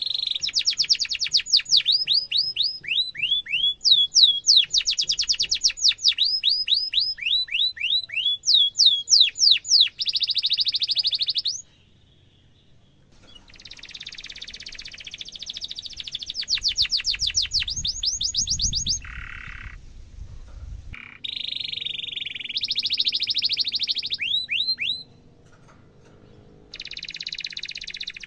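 Domestic canary in full song: long runs of quick, falling whistled 'cuit' notes alternating with buzzy rolled trills. The song breaks off briefly about 12 s in and again about 25 s in. A low rumble sits under it for a few seconds past the middle.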